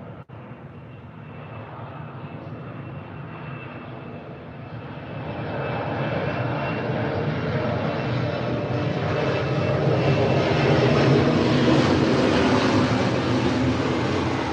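An aircraft flying over, its engine noise swelling steadily for about twelve seconds and then just starting to ease.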